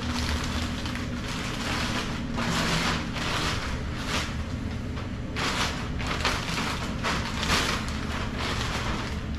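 Packaging rustling and crinkling in repeated bursts as the long tube headers are handled, over a steady low hum.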